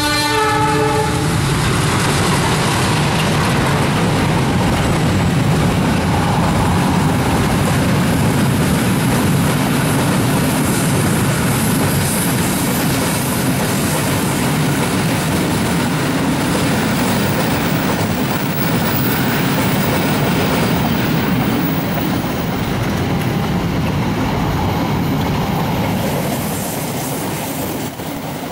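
A train horn sounding, ending about a second in, then a train passing close by: a long, loud, steady rumble and clatter of wheels on rails that eases near the end.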